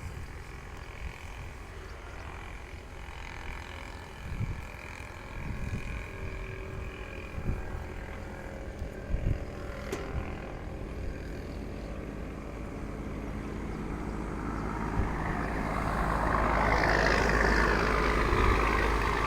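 Excavator's diesel engine running steadily with a few knocks, growing louder in the last few seconds as it works harder.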